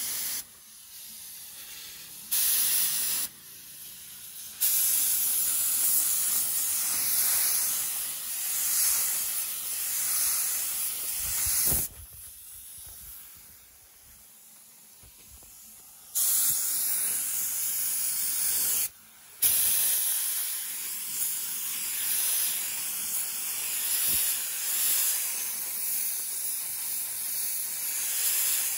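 Compressed-air paint spray gun with a gravity-feed cup hissing as paint is sprayed, the trigger pulled and released in about five bursts: two short ones, then a long spray of about seven seconds, and two more long sprays after a pause.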